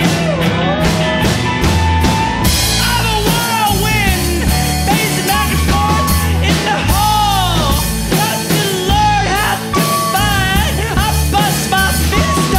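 Rock band playing live: drum kit and bass under a lead line that bends and slides up and down in pitch.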